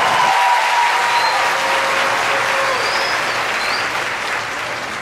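Crowd applauding and cheering with a few whistles as a marching band's final chord cuts off, the last held notes dying away in the first couple of seconds; the applause then slowly fades.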